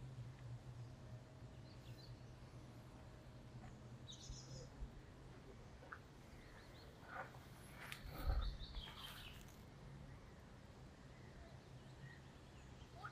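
Quiet outdoor ambience with a steady low hum and a few faint, short bird chirps. A brief low thump, the loudest moment, comes about eight seconds in.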